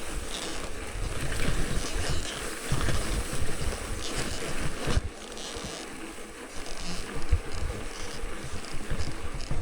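Wind buffeting the microphone over a touring bicycle rolling on a rough dirt track, with uneven gusts and scattered knocks and rattles.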